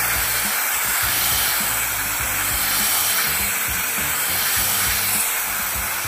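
Colbor AIRMAX A1 mini electric air duster running steadily: a continuous rush of air from its nozzle as it blows dust out from between the keys of a mechanical keyboard.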